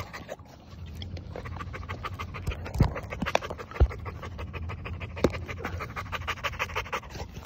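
Chocolate Labrador retriever panting quick and even, hard-breathing after a blood-tracking run. A few low thumps near the middle.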